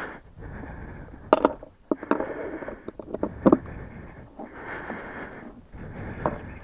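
Parts being handled during hands-on motorcycle airbox work: rustling and scraping broken by a handful of sharp clicks and knocks, the loudest about a second in and again about three and a half seconds in.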